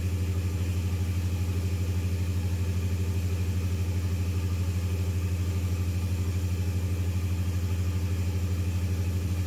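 Large natural gas engine of a grid-connected generator set running steadily under load, supplying about 300 kW. It is a deep, even hum with a rapid, regular pulse.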